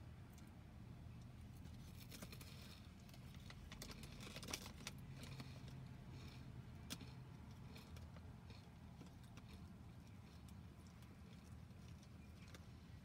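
Near silence: faint outdoor ambience, a low steady hum with scattered small ticks.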